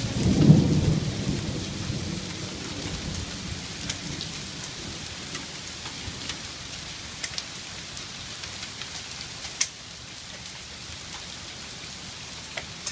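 Heavy rain of a hailstorm falling steadily, with a low rumble of thunder in the first second that fades over the next two. A few sharp ticks are scattered through the steady downpour.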